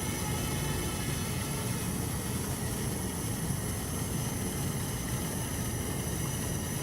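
Hubsan ZINO Mini Pro quadcopter drone in flight: the steady whir of its motors and propellers, with fixed high tones over a low rumble.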